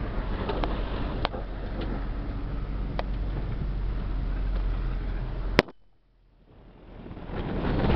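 Vehicle driving on a rough dirt track heard from inside the cabin: a steady engine and road rumble with a few small knocks. About five and a half seconds in, a sharp click, then the sound cuts away almost to silence and fades back in near the end.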